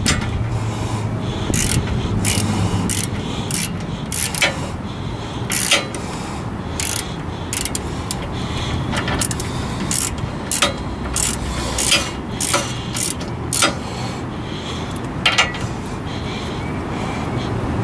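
Hand ratchet clicking in short irregular runs while it turns the front brake caliper bracket bolts on a 1997 Lincoln Town Car, over a steady low background rumble.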